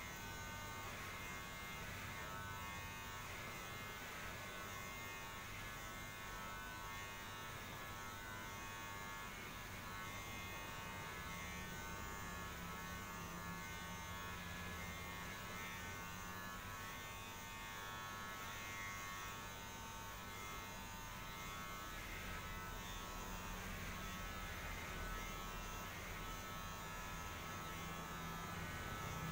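A small electric motor buzzing steadily, with a high-pitched whine on top that fades about ten seconds in.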